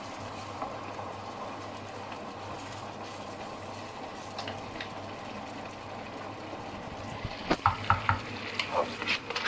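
Seafood paella simmering in an electric paella pan, a steady bubbling hiss in the freshly added stock, while a wooden spoon stirs through the soupy rice. Near the end comes a run of sharp clicks and knocks as the spoon works against the pan.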